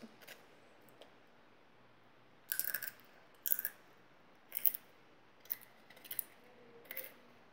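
Short, sharp crackles of a crisp piece of fried food, about six in all at roughly one a second, starting about two and a half seconds in.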